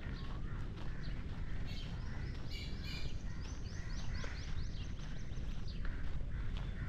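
Outdoor park ambience: footsteps on a gravel path over a low steady rumble, with birds calling. A short harsh call comes about two and a half seconds in, followed by a quick run of high, falling chirps over the next two seconds.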